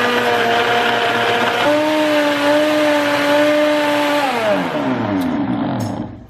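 Elechrome high-speed blender running its smoothie program on a shake with extra ice cubes. The motor runs steadily, steps up in speed about two seconds in, then winds down from about four seconds and stops just before the end.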